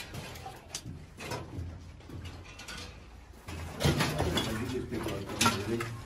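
Footsteps crunching and scuffing on a gritty tunnel floor, a string of short clicks that grows louder and busier about halfway in.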